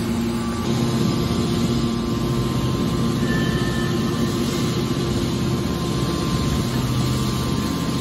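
Hydraulic power unit of a scrap metal baler running under load with a steady hum, driving the hinged lid down over a chamber of scrap copper wire.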